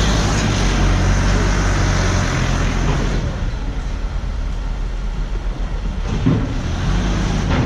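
A motor vehicle's engine running steadily, with a loud, even rush of noise over it.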